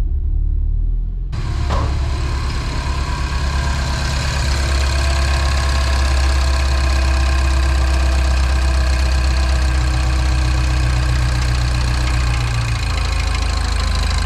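Mini R56's turbocharged four-cylinder petrol engine idling steadily just after a start with freshly cleaned and refitted fuel injectors. A steady hiss joins it abruptly about a second in.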